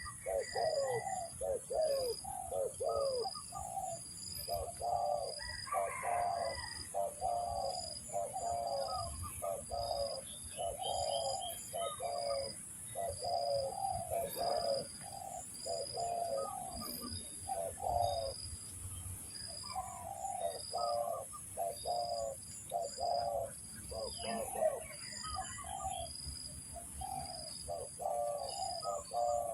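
Spotted doves cooing over and over in dense, repeated phrases with short breaks. A faint high chirp pulses steadily about once a second behind them.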